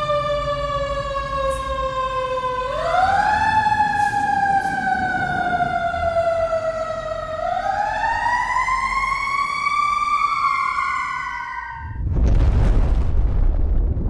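Fire engine siren wailing: its pitch rises steeply about three seconds in and again near eight seconds, falling slowly after each rise. About twelve seconds in the siren stops and a loud burst of noise takes over.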